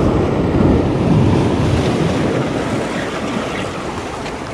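Sea waves breaking and washing over shoreline rocks, with wind buffeting the microphone; the surge eases off a little toward the end.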